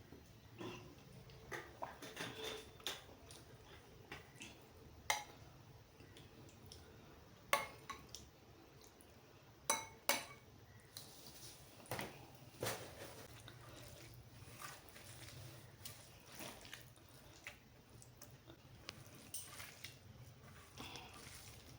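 Eating sounds from a meal of rice and curry: soft chewing and handling of food on a plate, broken by a number of sharp clinks, the loudest about five, seven and a half, ten and twelve seconds in.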